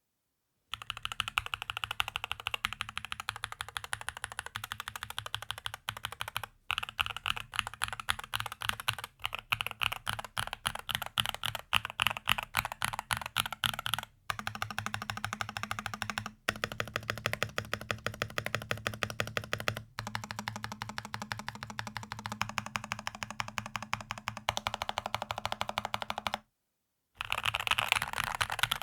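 Fast, continuous typing on a Rexus DAXA M61/M64 60% mechanical keyboard, a rapid stream of key clicks and thocks. It starts about a second in, with a few brief breaks and a short silence near the end before resuming.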